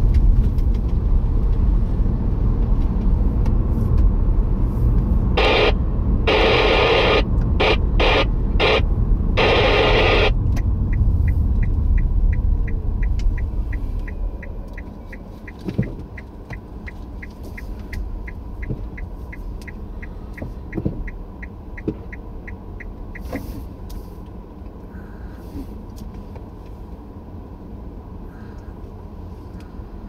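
Car cabin noise: a low road rumble that fades as the car slows almost to a stop on a rough lane. Several loud bursts of hiss come about five to ten seconds in, followed by a steady rapid ticking, about three a second, that stops about twenty-three seconds in.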